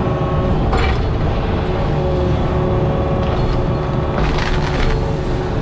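Diesel engine of a compact tracked machine running steadily under load while a stump bucket tears at tree roots, with wood cracking and splintering about a second in and again around four seconds in.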